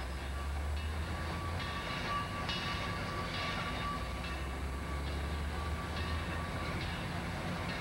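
Southern Pacific 786, a 2-8-2 Mikado steam locomotive, working slowly toward the listener on the next track. Under it runs a steady low hum and a steady high whine, both fading out about seven seconds in.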